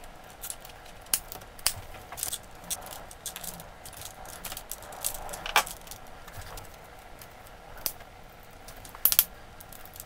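Insulated electrical wires being handled and bundled inside a plastic junction box: scattered light clicks and rustles of wire and plastic, with a louder group of clicks about nine seconds in.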